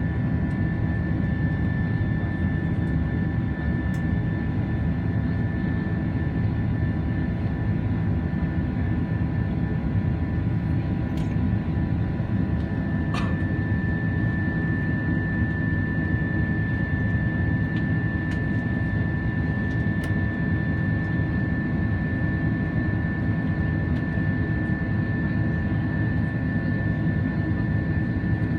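Airbus A330-300 jet engine and airflow noise heard inside the passenger cabin: a loud, steady rumble with a thin, steady whine above it. A faint tick sounds about halfway through.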